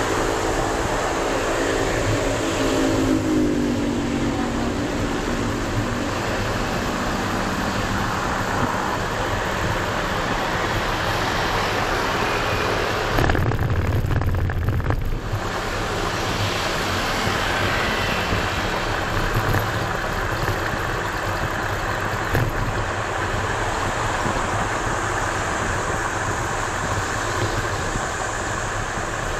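Wind rushing over the microphone and road rumble from a moving electric kick scooter, with a humming tone that drops in pitch a few seconds in. Midway the rumble turns rougher and jolting for a couple of seconds as the scooter shakes over uneven ground.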